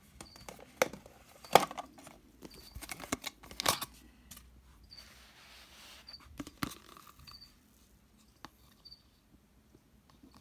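Light clicks and knocks of clear plastic cups and lids being handled, with a quick run of sharper taps in the first four seconds and a soft rustle around the middle, then quieter.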